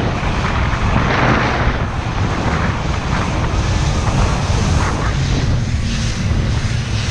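Boat's outboard motor running steadily with a low drone, under the rush of wind and water as the boat moves, with a stronger gust of rushing noise about a second in.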